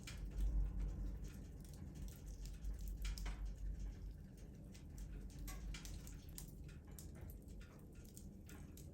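Wood fire crackling in a fireplace: irregular sharp pops and snaps over a low rumble.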